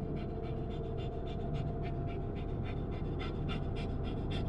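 A dog panting quickly, about four breaths a second, over the low rumble of the car on the road.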